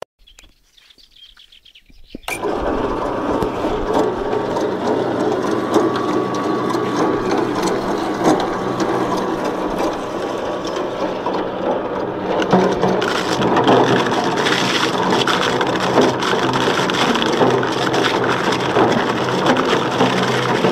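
Grifo Pipmo electric fruit mill starting up about two seconds in and running steadily with a constant motor hum, grinding apples into pulp with a continuous rattling crunch that grows denser from about halfway.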